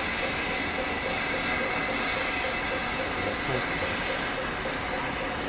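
GNR N2 0-6-2 tank steam locomotive No. 1744 moving slowly, with a steady hiss of steam and a faint regular beat of about three to four a second.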